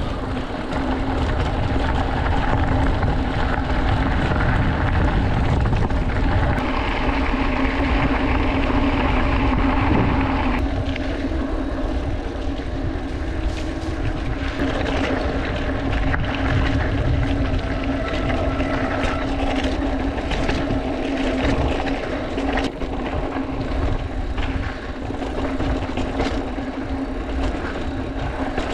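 Mountain bike riding a dirt trail, heard from a handlebar-mounted action camera: a steady drone and low wind rumble, with tyre noise and short rattles and clicks from bumps in the trail. About ten seconds in, the hiss drops as the ride moves onto narrower singletrack.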